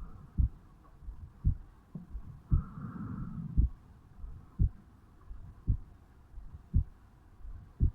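A man's heartbeat heard over the mitral valve area of the chest, beating steadily at about one beat a second, each beat a dull low thump. A softer, longer swell of noise rises and fades about three seconds in.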